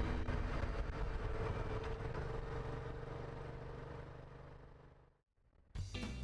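Yamaha FZ-series motorcycle engine running, fading out to silence about five seconds in, with music starting abruptly just before the end.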